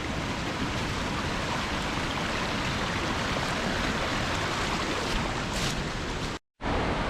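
Steady rush of a river in spate, swollen and churning after heavy rain, with the roar of a waterfall. It cuts out completely for a moment about six and a half seconds in.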